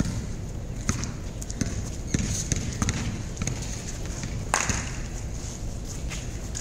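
Basketball bouncing on a concrete court: a run of irregular sharp thuds as the ball is dribbled, with one louder impact about four and a half seconds in.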